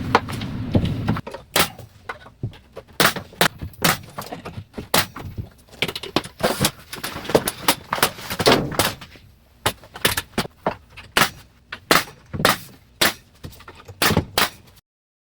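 Trim boards being nailed up around a door opening: a long, irregular run of sharp knocks, two to four a second. A steady low hum stops about a second in.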